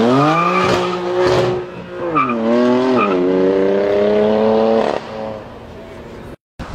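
BMW M4's twin-turbo straight-six through an Fi Exhaust valvetronic cat-back, accelerating hard and loud. The revs climb with sharp cracks about one and one and a half seconds in, the pitch drops twice as it shifts up, then climbs steadily again before falling away about five seconds in. There is a brief moment of silence near the end.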